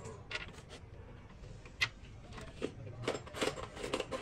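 About half a dozen scattered light clicks and knocks of things being handled, the sharpest a little under two seconds in, over a faint steady low hum.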